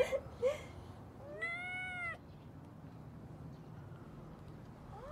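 Kitten meowing: one high, drawn-out call that rises then falls about a second and a half in, and a second call starting right at the end.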